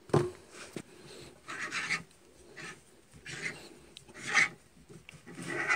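Hand reamer cutting into a new bushing in a KAMAZ transfer case differential housing, turned in short strokes with a wrench. A sharp knock comes near the start, then rasping metal scrapes about once a second.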